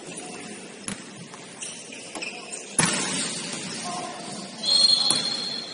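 Basketball game sounds in a gym: a light knock about a second in, a loud thud of the ball about three seconds in, then a high whistle blast lasting about a second near the end, a referee's whistle.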